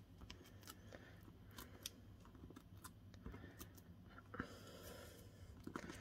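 Very faint clicks and paper rustles of fingernails picking and peeling the backing papers off foam adhesive dimensionals on a cardstock panel, with one slightly louder scrape a little past four seconds in.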